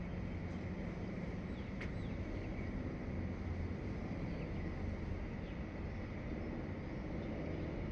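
Faint, scattered short bird chirps over a steady low rumble, with one sharp click about two seconds in.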